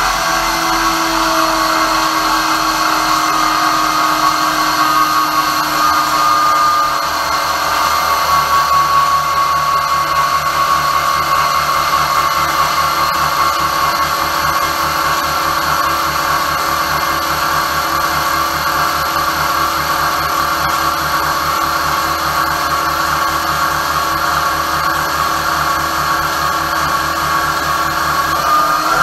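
Brushless motor on a load bench, driven flat out by a Flipsky FSESC 200 A VESC in FOC mode and turning belt-driven alternators as its load: a steady, loud whine with belt and machine noise. The pitch sags a little early on as the current climbs past 130 amps and the motor speed drops.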